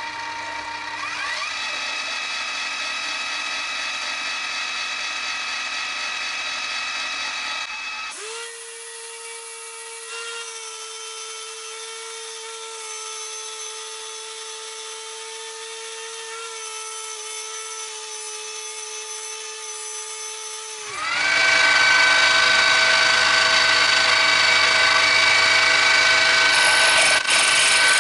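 Small electric motor of a US 103 tubular key cutting machine running with a steady whine, spinning up about a second in, settling to a quieter lower hum around eight seconds, then spinning up louder again near the end.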